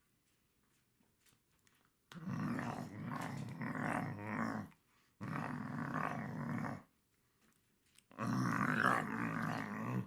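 Black Labrador growling: three long, low growls of about two seconds each, the first starting about two seconds in.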